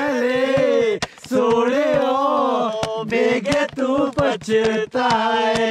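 A man singing unaccompanied, a slow melody of long held, wavering notes with a short breath break about a second in. Sharp clicks and pops sound throughout.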